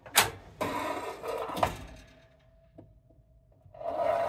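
Oven door of a Dickinson Mariner stainless-steel marine propane stove being pulled open: a sharp latch click, then about a second of metal clatter as the door swings down, with another click. After a quieter stretch, a louder scraping, rustling sound comes in near the end.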